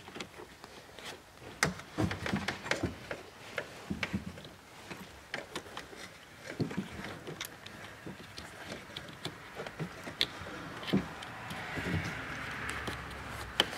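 Hands handling a car door's wiring harness and rubber cable boot, pressing them into the door frame: scattered light clicks, knocks and rustles, with a longer scraping rub near the end.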